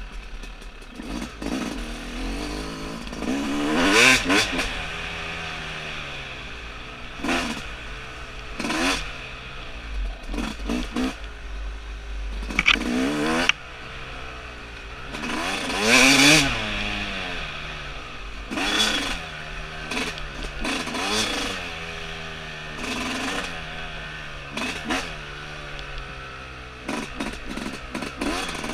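2017 Yamaha YZ250's single-cylinder two-stroke engine under way, revving up and falling back again and again as the throttle is opened and closed. The loudest bursts come about four seconds in and again around sixteen seconds.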